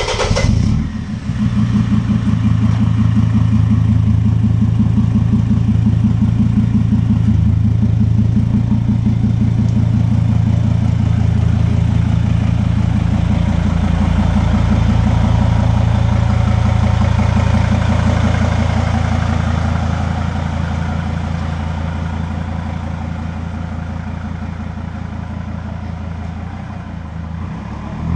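A first-generation Sprinter van's diesel engine just after starting. It settles within the first second or so into a steady idle, heard at the exhaust tip as an even, throbbing exhaust note. The note grows somewhat quieter over the last third.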